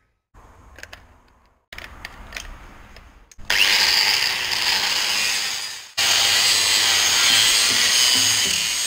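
After a few faint clicks, an angle grinder with a flap disc sands the rusty steel chassis of a 1933 Austin 10 from about three and a half seconds in: a loud, steady grinding hiss. It breaks off suddenly about six seconds in and starts again at once.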